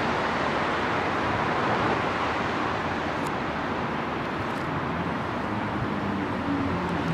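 Steady rushing noise of a professional kitchen's extraction ventilation, with a couple of faint ticks in the middle.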